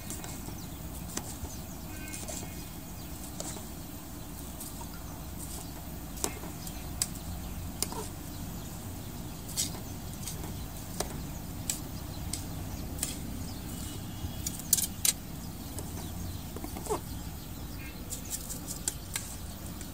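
A metal ladle clinking and scraping against a large aluminium cooking pot of rice and water, in scattered sharp clicks over a steady low rumble. The two loudest clicks come close together about three-quarters of the way through, and a run of clicks near the end comes as rice is tipped in from a metal bowl.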